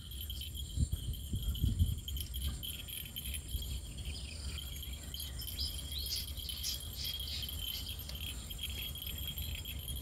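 Insects trilling steadily at a high pitch, with a few low thumps in the first two seconds and some light, high clinks in the middle.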